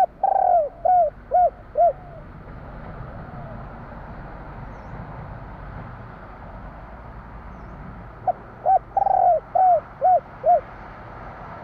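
Spotted dove (tekukur) cooing in two phrases of the 'kuk 3' song type: a longer coo followed by three short coos at the start, then again about eight seconds in, where a couple of short coos come before the long one.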